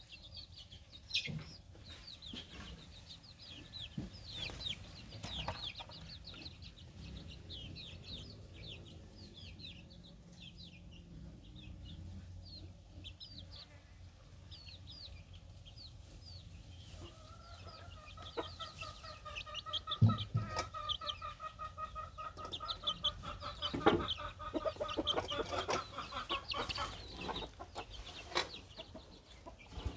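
Chickens clucking, with many quick high peeps. About halfway through, a steady pitched hum with overtones joins in, and a few sharp knocks sound in the second half.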